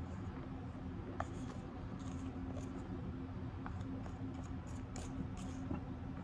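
Metal spoon scooping and scraping through powdery cornstarch in a glass bowl, giving short crisp crunches at irregular moments, several in quick succession about five seconds in. A steady low hum runs underneath.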